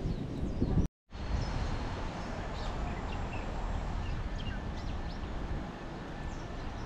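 Birds chirping now and then over a steady rushing outdoor background. The sound cuts out completely for a moment about a second in.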